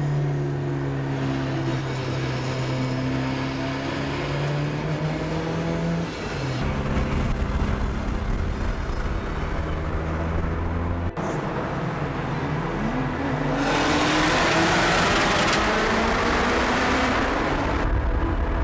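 Car engine droning steadily at motorway cruise, heard inside the cabin of a K20-turbo Ford Escort. After a cut, convoy cars run on the motorway: an engine revs up with a rising pitch, then comes a loud rush of wind and road noise for a few seconds.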